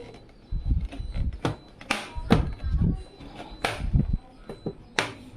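Hands handling a steel micro-ATX PC case and its parts: a series of sharp clicks and knocks with dull low thuds in between, the thuds about half a second in, near the middle and about four seconds in.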